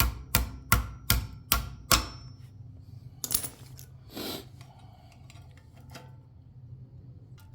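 A run of sharp metallic clicks, evenly spaced at close to three a second, which stops about two seconds in. Quieter handling and rustling sounds follow, including two short scrapes.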